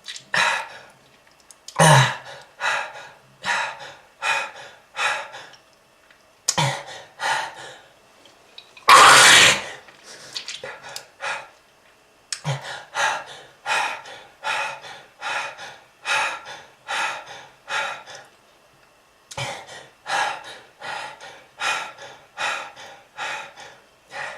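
A smoker's repeated short coughs, about two a second in long fits, with a louder, longer hawk about nine seconds in.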